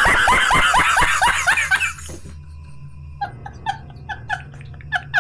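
A man laughing hysterically: a fast run of loud cackling laughs for about two seconds, then a quieter pause, then high, squeaky wheezing laughs about three a second.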